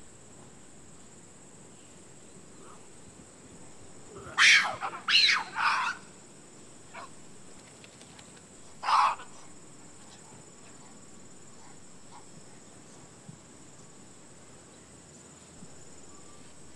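Gelada baboons calling: three loud, sharp calls in quick succession about four and a half seconds in, and one more about nine seconds in, over a faint steady high whine.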